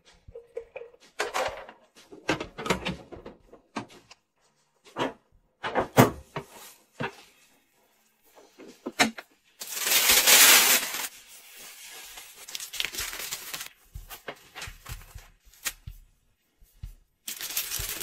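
A string of close-up handling sounds: separate clicks, knocks and short scrapes of small objects, with a louder burst of noise lasting about a second and a half around ten seconds in.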